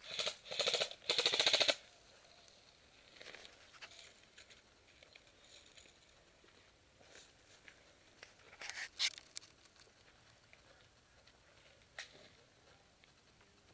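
Airsoft gun firing three short rapid bursts in the first two seconds, a quieter burst around nine seconds, and a single sharp click near twelve seconds.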